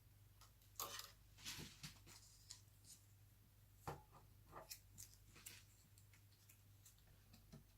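Faint, scattered clicks and short scrapes of plastic laptop parts being handled as a keyboard is fitted into the laptop's chassis.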